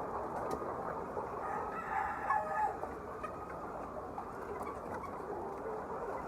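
A flock of hens clucking and calling together in a steady din, with one louder drawn-out call rising above it about two seconds in.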